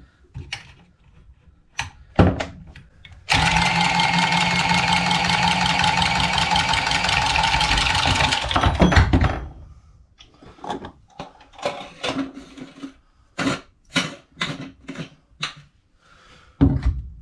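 A handheld power saw runs steadily for about five seconds, cutting through pipe, then stops; short knocks and clicks of the pipe and tools being handled come before and after.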